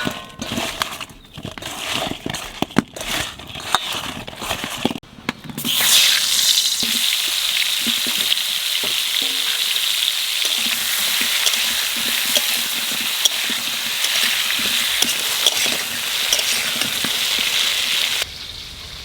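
A few seconds of scattered knocks and clicks, then about six seconds in a sudden steady sizzle: salted, turmeric- and chilli-coated potato pieces frying in hot oil. The sizzle stops abruptly near the end.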